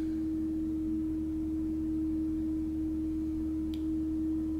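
A steady, unbroken low tone with a fainter hum beneath it, and a faint tick about three and a half seconds in.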